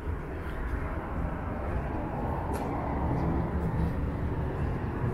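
Outdoor ambience with a steady low rumble; a vehicle's engine hum comes in about halfway through and grows louder toward the end as the vehicle approaches.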